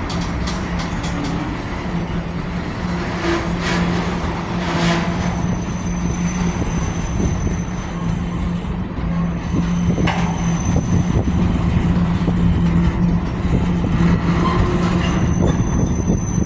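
CSX freight train rolling slowly past as it slows to a stop, with a steady low hum and a few clicks of the rail cars. A thin high squeal comes in about five seconds in and again near the end.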